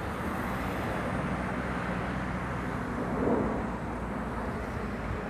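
Road traffic: a steady hum of engines and tyres from passing vehicles, swelling slightly about three seconds in.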